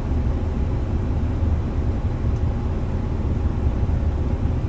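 Steady low rumble of a diesel dump truck, heard from inside the cab.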